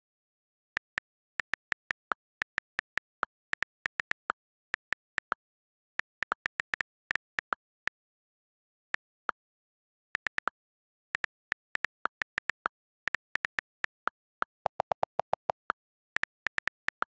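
Tablet on-screen keyboard key clicks as a caption is typed, in irregular runs of short ticks with pauses between words. Near the end comes a quicker burst of slightly lower-pitched clicks.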